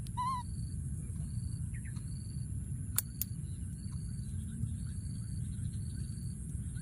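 Baby monkey gives a short, high, wavering call right at the start. Behind it, a short high chirp repeats about every 0.7 s over a steady high-pitched whine, with two sharp clicks about three seconds in.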